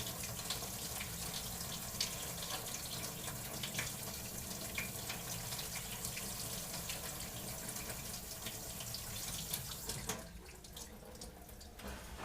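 Kitchen tap running into a pot while rice is washed in it, with small splashes and knocks; the water stops near the end.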